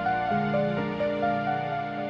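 Background music: a slow melody of held notes over a low sustained note that comes in about a third of a second in.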